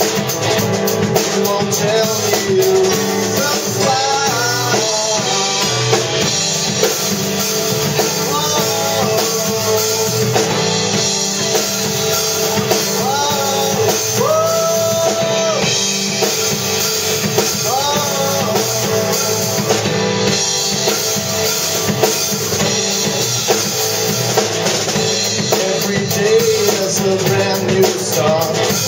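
Live jazz-fusion/soft-rock band playing: drum kit, electric guitar, electric bass and a Kurzweil stage keyboard, with a male lead vocal that holds one long note about halfway through.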